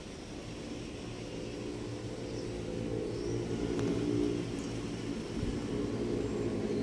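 A low engine hum that slowly grows louder, with a few faint high chirps above it.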